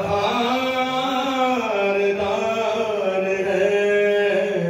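A man singing a devotional chant solo, holding long drawn-out notes that slide to a new pitch about halfway through.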